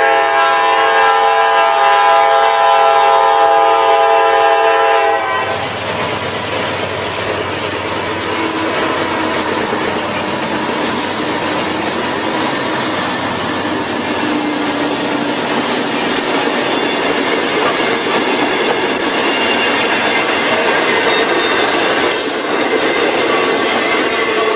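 Freight locomotive air horn sounding one loud, steady multi-note chord for about five seconds, then cutting off. Freight cars then roll past with a steady rumble and clatter of steel wheels on the rails.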